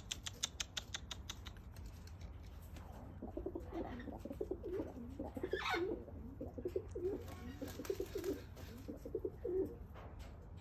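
Domestic pigeons cooing in repeated wavering calls through most of the stretch, with one brief higher call partway through. A rapid run of sharp clicks is heard before the cooing begins.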